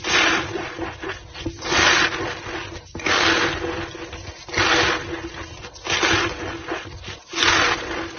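White gym chalk powder being squeezed and packed back into a block, with a squeaky crunch swelling and fading six times at an even pace, about every second and a half.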